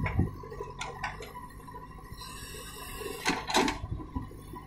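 JCB backhoe loader at work: its diesel engine runs steadily under a loud thud as the bucket's load drops into a tractor trailer at the start, followed by metallic clanks of the arm and bucket. A loud scrape about three and a half seconds in as the bucket digs into the earth.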